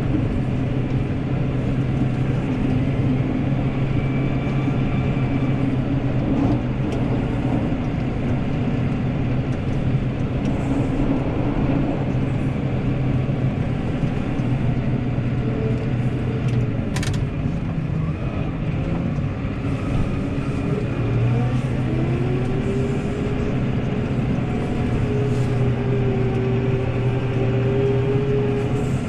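New Holland tractor engine running steadily under load while pushing a snow plow. A single sharp click comes a little past halfway, and a whine rises about three-quarters of the way through and then holds.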